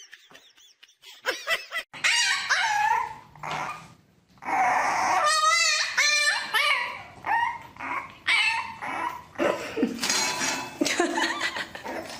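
French bulldog puppy barking and whining over and over in high-pitched cries, starting about two seconds in; some cries waver up and down in pitch.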